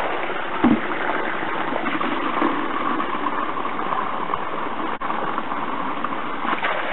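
Water gushing from an open 52 mm pipe into a plastic tub during a bucket flow test, a steady rushing splash over the running stream. A brief thump comes under a second in.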